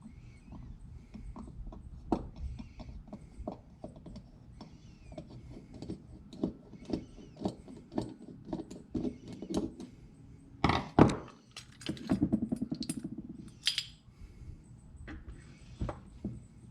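Small metal carburetor parts and hand tools clicking and tapping on a workbench, with a louder clunk about eleven seconds in followed by a quick rattle.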